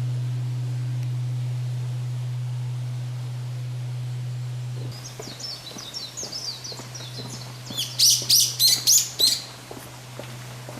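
The low, steady hum of Nanzen-ji's great bonshō temple bell lingering after a strike (its oshi reverberation), dropping suddenly to a quieter hum about five seconds in. Birds then chirp over it, with a run of five loud chirps near the end, the loudest sound here.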